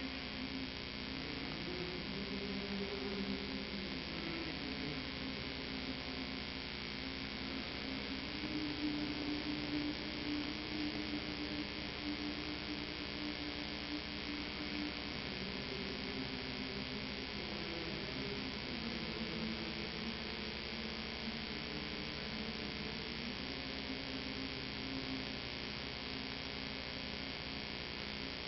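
Very soft choir holding long notes that shift slowly in pitch, nearly buried under a steady electrical hum and hiss from a worn VHS tape recording.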